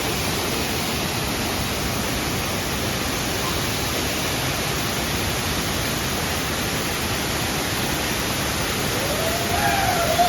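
Steady rushing noise throughout, with a short gliding voice-like call near the end.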